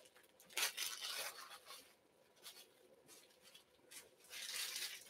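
Faint rustling and rubbing from trading-card packs being handled, heard twice: once about half a second in and again near the end.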